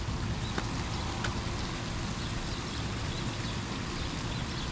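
Steady outdoor background noise, an even hiss with a faint steady hum underneath and a couple of light clicks.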